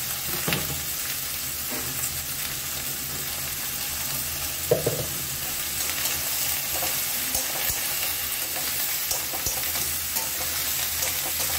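Ash gourd pieces sizzling in hot oil in a kadai, while a metal spatula stirs them and scrapes and knocks against the pan. The sharpest knock comes about halfway through.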